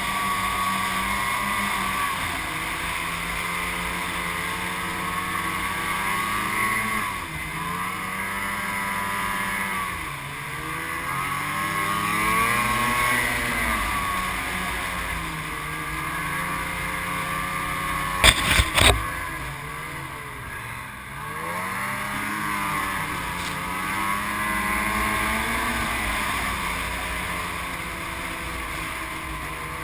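Ski-Doo snowmobile engine running under the rider, its pitch rising and falling with the throttle, over a steady hiss. A quick cluster of three sharp knocks about two-thirds of the way through is the loudest sound.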